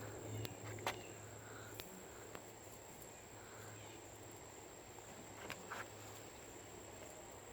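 Faint, scattered rustles and soft scratches of loose dirt from chickens dust-bathing, over a steady thin high-pitched whine; a low hum stops about two seconds in.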